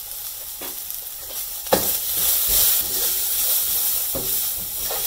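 Steel spoon and ladle stirring and scraping boiled black urad dal in a stainless steel pot, with a sharp clink of metal on metal a little under two seconds in, over a light sizzle from the hot pan.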